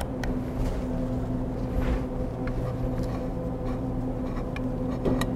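A steady mechanical hum, with a few faint clicks and light scrapes as the robot arm's plastic side cover is pried loose with a hand tool.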